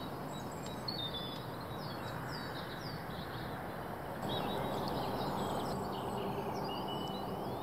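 Small birds chirping and calling over a steady outdoor background hiss. The background steps up a little about four seconds in.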